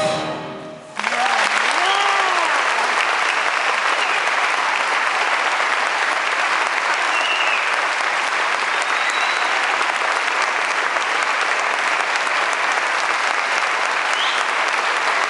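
The last chord of the chorus and band dies away, and about a second in an audience breaks into steady applause, with whoops and a few whistles.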